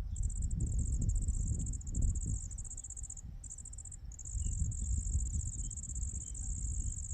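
A cricket trilling: a high, fast-pulsed buzz that breaks off briefly twice around the middle, then runs on. A low rumbling noise sits underneath.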